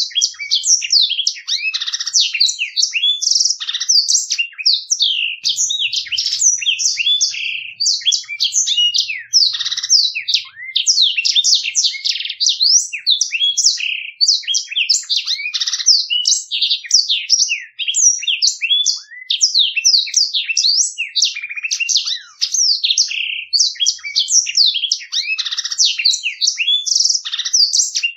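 Black-throated canary (blackthroat) singing a fast, clear rolling song of high twittering notes and trills that follow each other with hardly a pause.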